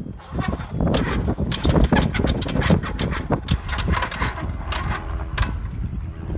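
1966 Cessna 150F's four-cylinder Continental O-200 engine cranking and catching on its first start in years, firing unevenly with sharp pops and running rough, then falling away about five and a half seconds in. The rough popping is typical of an engine that was not primed.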